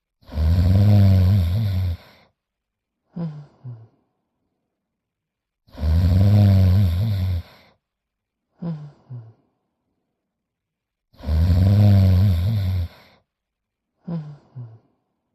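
Cartoon snoring: a long, loud snore with a low rumble, followed by two short puffs, repeated three times about every five and a half seconds.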